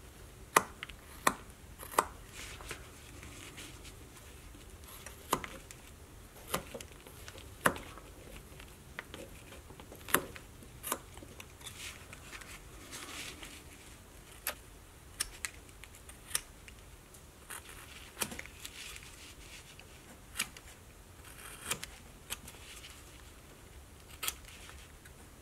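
Carving knife cutting basswood in short, controlled strokes. It makes irregular sharp clicks a second or two apart, with softer scraping between them.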